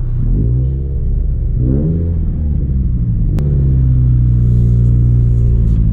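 Turbocharged Scion FR-S flat-four breathing through a Tomei 80R catback exhaust: revs climb twice in short pulls, then it settles into a steady low drone. A sharp click comes about halfway through.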